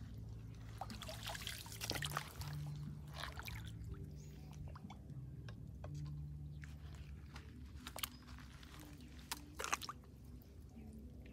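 Shallow water splashing and trickling as a small glass tank is dipped and moved in a muddy pool, with sharper splashes about two seconds in and again near the end. A low steady hum sits underneath.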